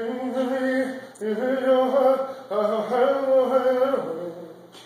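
A man's voice singing a wordless, chant-like tune in three long held phrases.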